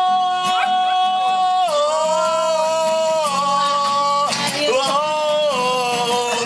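Men singing a song together to an acoustic guitar, holding long notes that step down in pitch twice.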